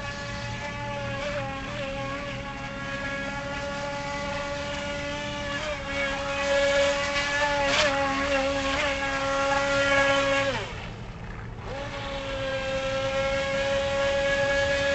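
Feilun FT009 RC speedboat's electric motor whining at a steady high pitch while the boat runs at speed. About ten and a half seconds in the whine drops sharply in pitch as the throttle is let off, then climbs back about a second later and holds again.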